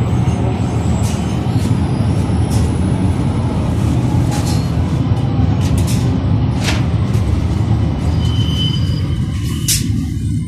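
Regional train running, heard inside the passenger coach: a steady low rumble with scattered clicks and knocks, and a few brief high squeals near the end as it slows for the station.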